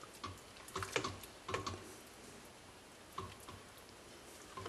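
Light, scattered clicks and knocks, several in the first second and a half and a few more later: a stick blender's head tapping against a stainless steel soup pot while it is moved about in the soup.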